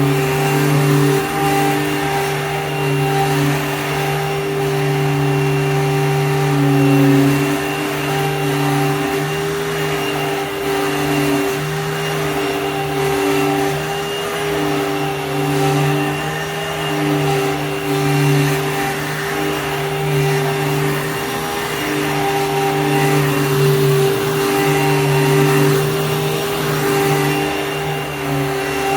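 Hoover Fold Away U5161-900 upright vacuum cleaner running: a steady motor hum and whine that rises and dips slightly in level as it is worked.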